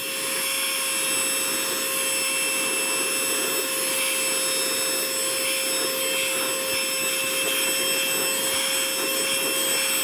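Cordless handheld car vacuum running with a steady high motor whine and a rush of air. Its crevice nozzle is sucking biscuit crumbs up off a carpet.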